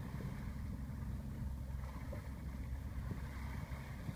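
Steady low rumble of a sailboat's inboard engine running as the boat motors at about five knots, with water rushing along the bow.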